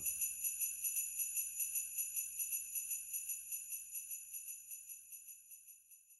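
Sleigh bells shaken in a steady rhythm, about four or five shakes a second, slowly fading out as the carol ends.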